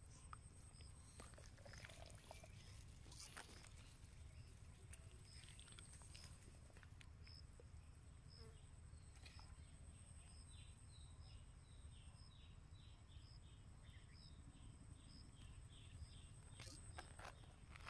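Faint outdoor ambience of insects calling: a steady high hum and a short chirp repeating about once a second. In the second half comes a run of short falling chirps, about two a second, and a few brief rustles of grass come and go.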